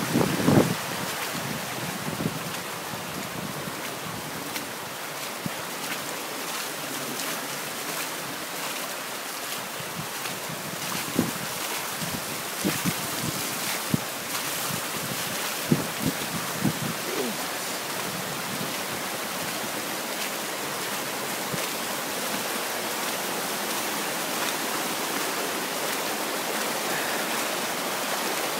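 Steady rain falling, an even hiss throughout, with a few brief low thumps near the start and again around the middle.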